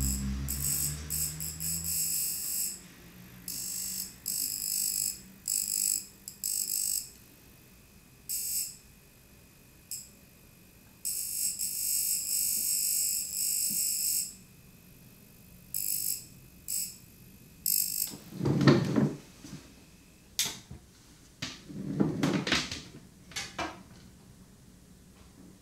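High-frequency facial machine buzzing in short on-off bursts, from a fraction of a second to a few seconds each, as its electrode is worked over the skin. In the last several seconds the buzzing stops and a few knocks and rustles of equipment being handled follow.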